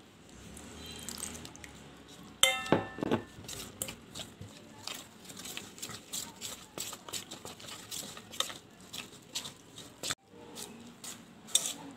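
Metal spoon stirring and scraping a dry gram-flour and semolina mix in a stainless steel bowl. A ringing clink of the spoon against the bowl comes about two and a half seconds in, followed by a run of quick scrapes and taps.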